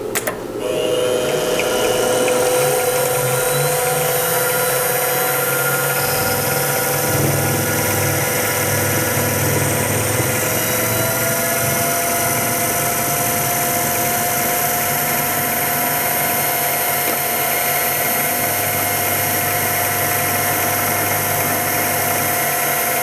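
Mini mill spindle motor starting up and then running steadily with a whine, as a quarter-inch two-flute end mill cuts a slot through a block of UHMW plastic.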